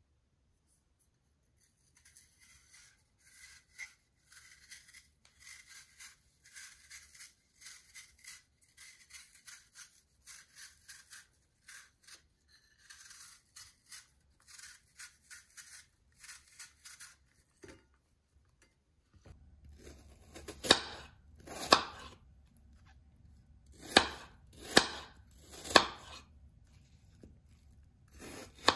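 A knife peeling apple skin in many short, soft scraping strokes. About two-thirds of the way through it gives way to a kitchen knife chopping the peeled apple on a wooden cutting board, a handful of sharp knocks about a second apart.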